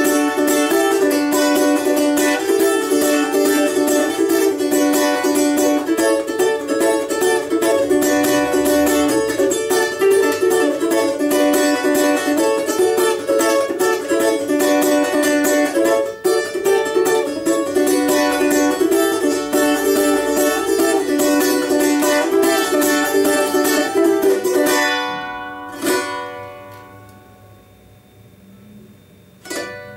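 Four-string balalaika with a doubled first string, tuned to open D major with the pair in unison, strummed fast and continuously. About five seconds before the end the playing stops, a single strum rings out and fades, and the strumming starts again right at the end.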